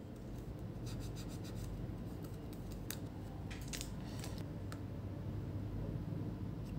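Light clicks and scratches from handwork on an open laptop motherboard, with a quick run of small ticks about a second in and a few more scattered through the middle, over a steady low hum.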